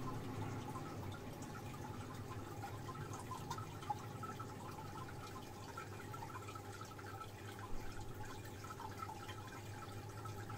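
Aquarium internal power filter running: a steady low hum with water trickling and many small bubbles popping, plus a couple of brief louder drips or ticks.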